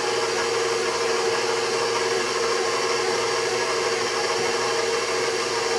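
KitchenAid Professional 600 bowl-lift stand mixer running steadily on low speed, its paddle beating flour into the batter: an even motor whir with one held tone.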